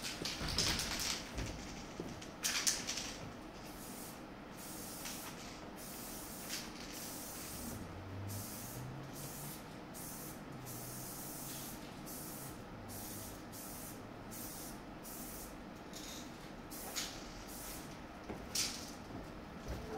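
Aerosol spray-paint can hissing in many short bursts, roughly one a second, as letters are sprayed onto a backdrop.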